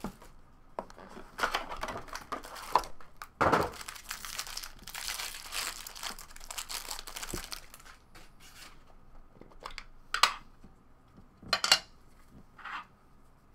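Foil trading-card pack wrapper being torn open and crinkled, with the loudest sharp rip about three and a half seconds in. After that come a few short, separate rustles as the cards are handled.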